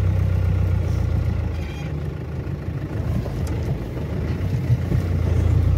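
Engine and road noise of a car heard from inside the cabin while driving: a steady low drone that eases off for a couple of seconds in the middle and builds again near the end, with one short knock.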